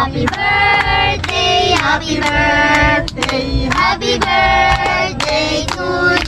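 Background music: a song with singing over a beat.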